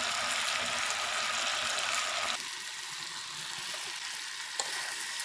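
Meat and potato pieces with turmeric and spices sizzling as they fry in hot oil in a wok. The sizzle thins a little about two seconds in.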